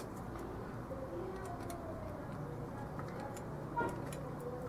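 Small clicks and taps of a plastic mini RC submarine being handled and worked with a small screwdriver, with one sharper click near the end.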